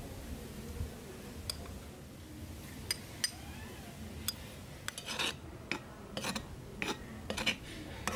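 A metal spoon clinking and scraping against a metal basin while rice flour is stirred. There are a few separate clinks at first, then a quicker run of clinks and short scrapes in the second half.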